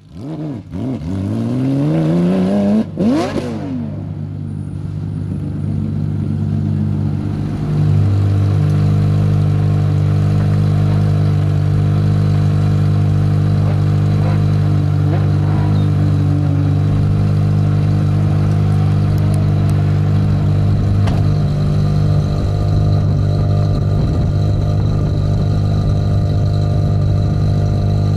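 Rally car engine revving, its pitch climbing over the first three seconds, then running at a steady pitch that gets louder about eight seconds in.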